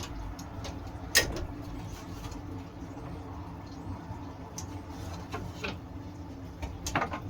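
A steady low mechanical hum with a few sharp clicks, about a second in, around the middle and near the end.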